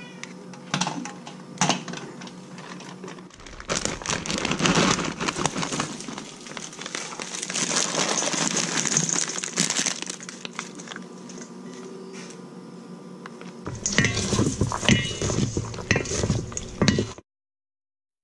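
Kitchen preparation sounds: rustling and crinkling with clicks and knocks of a steel pot, lid and bowl. The sound cuts off abruptly about a second before the end.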